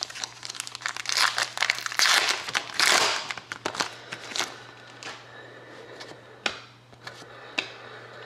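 Hockey card pack wrapper being torn open and crumpled: a dense run of crinkling from about one to four and a half seconds in, followed by a few scattered sharp clicks.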